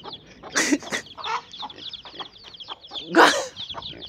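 Mother hen clucking over a brood of chicks that keep up rapid, high peeping, with a louder burst about three seconds in.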